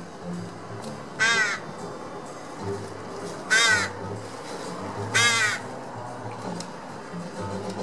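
Crow cawing: three short, harsh caws about two seconds apart.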